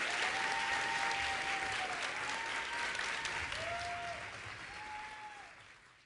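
Theatre audience applauding, with a few drawn-out cheers over the clapping; the applause fades away near the end.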